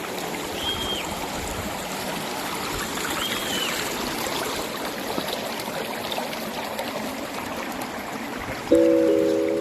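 River water rushing and trickling over rocks as a steady hiss, with a couple of short high whistles in the first few seconds. Music comes in loudly near the end.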